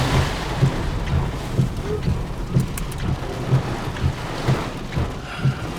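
Heavy rain and gusty wind of a supercell's rear-flank downdraft beating on a vehicle, a steady hiss with irregular low buffeting rumbles and scattered sharp ticks of drops.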